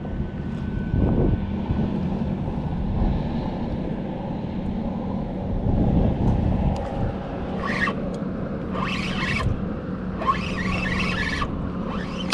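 Wind rumbling on the microphone over a steady low engine hum, with a few short hissing rushes in the second half.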